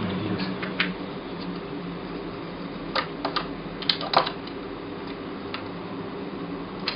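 A few light clicks and taps from hands handling an iPod nano and its plastic screen protector, bunched about three to four seconds in, over a steady low hum.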